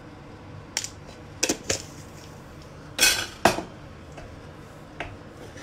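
A metal spoon clinking against a cooking pot while stirring thick boiled dried-pea ragda: about six short knocks, the loudest pair about three seconds in.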